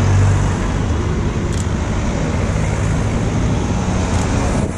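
Cycling team support cars driving past close by one after another, with a steady low engine hum and tyre noise on the road.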